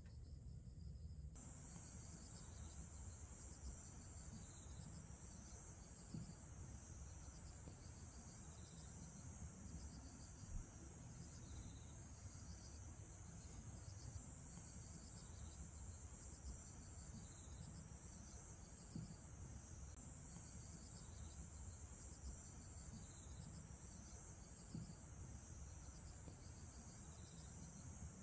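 Faint outdoor insect chorus: a steady high chirring that starts about a second in, with a pulsing trill that repeats roughly once a second, over a low rumble with a few small knocks.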